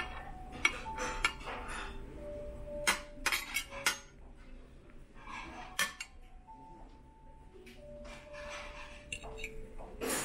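Steel knife and fork clinking and scraping against a ceramic plate while cutting an omelette: a scatter of sharp clinks, several in quick succession around three to four seconds in.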